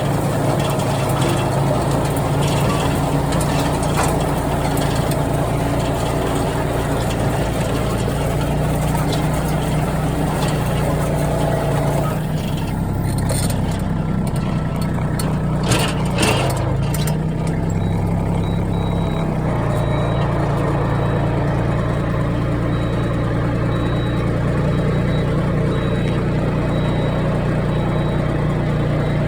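Farm machine engine running steadily, driving a rotary tiller that makes an abnormal noise near its rotating shaft, which the owner suspects is a lubrication problem or a bad bearing. About twelve seconds in the engine note dips and wavers for several seconds, with a couple of sharp knocks near the middle, then settles back.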